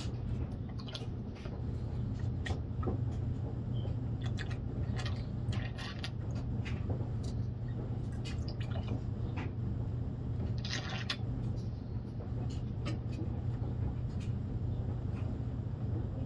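Small drips, squishes and splashes of water as a squeeze bottle sucks up and squirts concentrate in a plastic gold pan, as short irregular clicks and trickles over a steady low hum.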